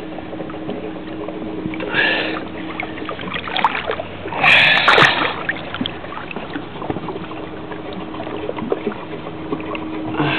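Water sloshing and splashing against the hull of a small powered watercraft, with a faint steady hum underneath. Two louder splashes come about two and about four and a half seconds in.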